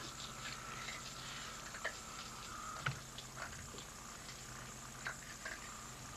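Quiet room tone with a faint steady hum, broken by scattered small clicks and taps, the sharpest about three seconds in.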